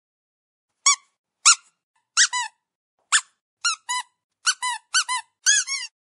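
Dog squeaky toy squeaked over and over: a dozen or so short, high squeaks, several in quick pairs. They start about a second in and come faster toward the end.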